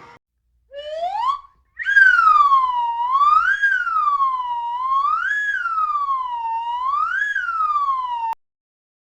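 Cartoon whistle sound effects: a short rising whistle glide about a second in, then a longer whistle that swoops slowly up and down like a siren, about four swells, and cuts off suddenly near the end.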